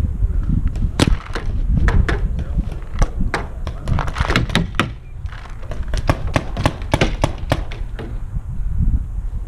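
Paintball markers firing: many sharp pops, scattered at first, then coming in quick strings of about three a second through the middle, over low wind rumble on the helmet-camera microphone.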